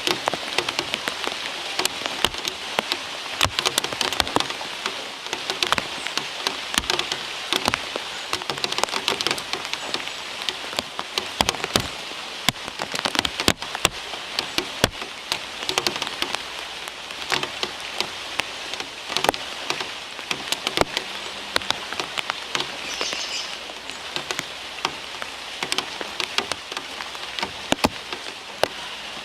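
Steady rain falling hard, with many sharp drop hits close by scattered through the hiss.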